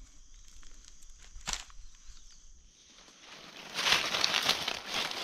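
Dry leaf litter rustling and crackling as gloved hands and a knife dig through it to lift a mushroom from the ground, starting about two-thirds of the way in after a quieter stretch with a single click.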